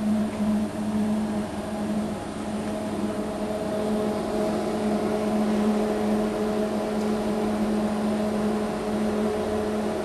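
Pomeke pomegranate aril-separating machine running: a steady mechanical hum with a strong low tone and a few higher tones over a hiss.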